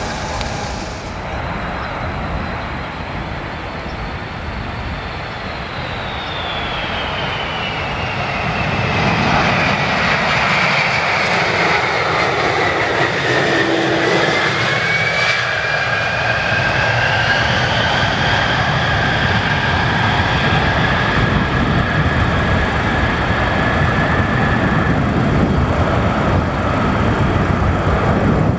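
Boeing KC-46 tanker's twin Pratt & Whitney PW4062 turbofans during a touch-and-go. A high engine whine falls in pitch as the jet rolls past on the runway, then rises again as the engine noise grows louder and stays loud while the aircraft climbs away.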